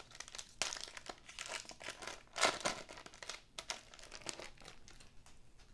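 A foil trading-card pack wrapper being torn open and crinkled in the hands, in irregular crackles. It is loudest about two and a half seconds in, then fades.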